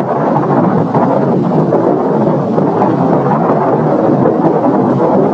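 Steady, loud rumbling roar of an exploding rocket's fireball, with no single distinct blast.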